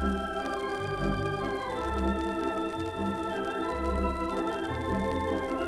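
Standaart theatre organ playing a lilting waltz-time tune, sustained chords over a low pedal bass note that sounds about once a second, heard from a 1933 78 rpm shellac record.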